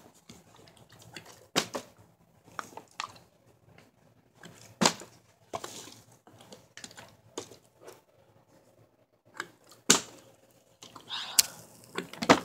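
Plastic water bottles being flipped and landing on a carpeted floor: about four sharp knocks spaced a few seconds apart, with smaller handling clicks in between.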